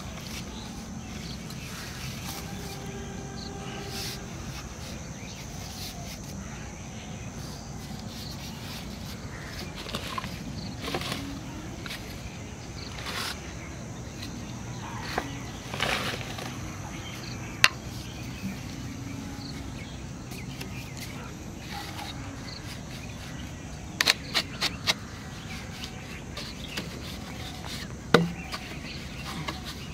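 Scattered plastic clicks and knocks from PVC pipe fittings being handled and pushed together, with rustling of a plastic feed bag, over a steady outdoor background.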